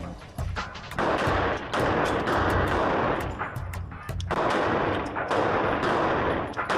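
Glock pistol firing many shots, several in quick succession.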